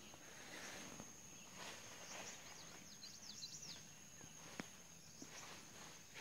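Faint forest background with a steady high-pitched tone, a quick run of bird chirps about two to three and a half seconds in, and a single sharp click a little later.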